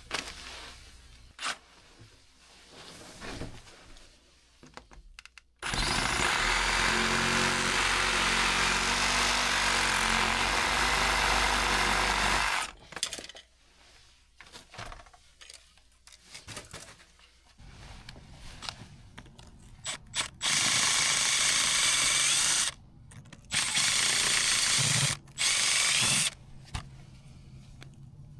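Power tool run on cast iron drain pipe: one long run of about seven seconds, then three shorter runs near the end, with knocks and clatter between them.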